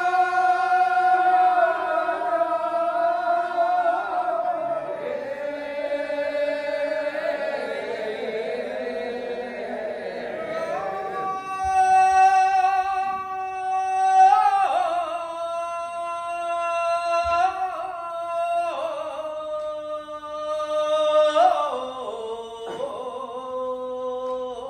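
A group of men singing iwai kiyari, the celebratory Edo work chant, unaccompanied and in unison. They hold long drawn-out notes with slides between them, moving to a new pitch every few seconds.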